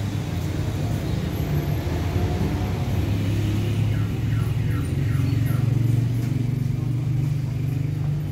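A steady low hum: the background drone of an indoor shopping mall, with faint short chirps about halfway through.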